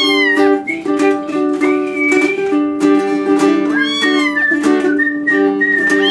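Ukulele playing an instrumental break in a song, with three cat meows over it: one at the start, one about four seconds in, and one at the end.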